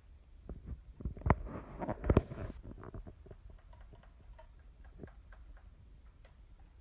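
Handling noise: a quick run of knocks and clatter, loudest between one and two and a half seconds in, then scattered light clicks.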